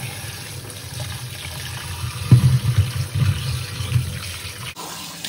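Kitchen tap running into a plastic tub of potatoes in a stainless steel sink, with uneven splashing and sloshing as hands scrub the potatoes in the water to rub off soil.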